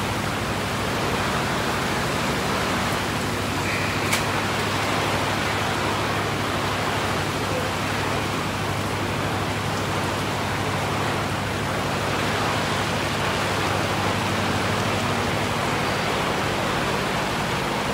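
Heavy rain pouring down and splashing into standing floodwater, a dense, steady hiss, with a low steady hum underneath and a single faint click about four seconds in.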